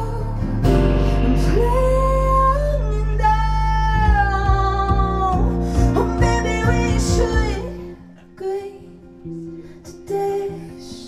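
Live band: a voice singing long held notes over acoustic guitar, bass and drums. The full band stops about eight seconds in, leaving a few quiet guitar notes.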